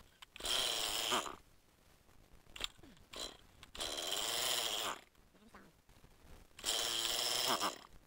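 A chainsaw being pull-started three times, each pull of the recoil starter spinning the engine over for about a second with a rise and fall in pitch. The engine does not catch.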